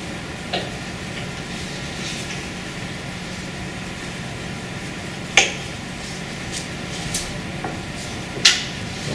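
Classroom room tone: a steady hum with a few sharp knocks and clicks scattered through it, the loudest about five and a half and eight and a half seconds in.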